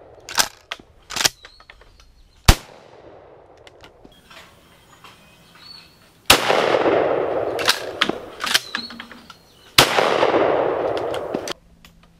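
12-gauge shotgun shots. A few light clicks near the start and one sharp crack about two and a half seconds in are followed by two much louder blasts about three and a half seconds apart, each with a long rolling tail that fades over more than a second.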